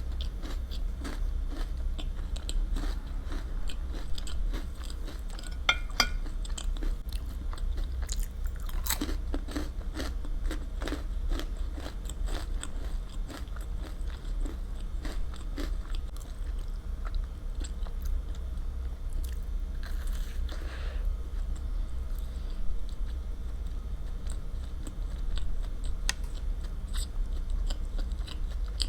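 Close-miked eating: steady chewing and biting with wet mouth clicks and some crunch, over a steady low hum.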